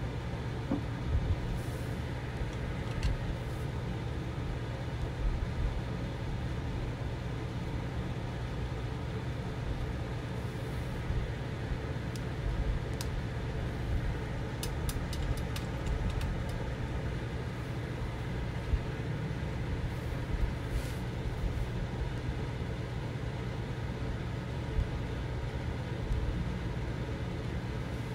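Steady low background rumble throughout. Around the middle comes a short run of light clicks as a paintbrush is rinsed against a plastic water bowl.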